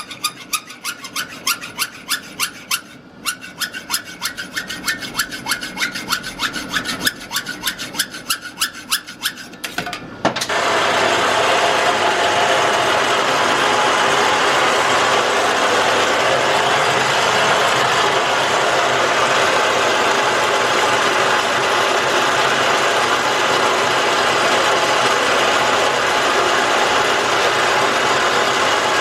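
Metal being worked by hand with quick rhythmic rasping strokes, about four a second, for roughly ten seconds. Then a louder, steady rushing, grinding noise takes over and runs on without a break.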